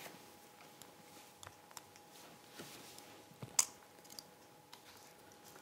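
Quiet room tone with a faint steady hum, scattered small clicks and rustles, and one sharper click about three and a half seconds in.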